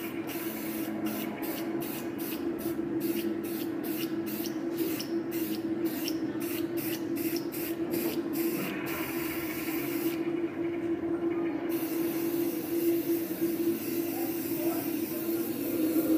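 Aerosol can of hair spray hissing as it is sprayed over a charcoal drawing to fix it. For the first several seconds it comes in quick short bursts, about three a second. Then it sprays steadily, with one pause of about a second and a half partway through.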